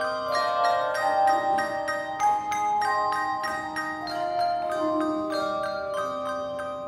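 Handbell choir playing: bells struck in a steady rhythm, several notes at once, their tones ringing on over one another.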